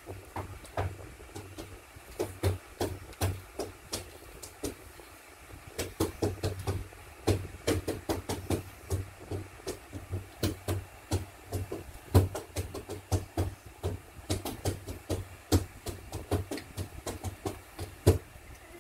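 Beatboxing: a child making a mouth-made drum beat of low kick thumps and sharp snare and hi-hat clicks, about three a second, which gets busier partway through.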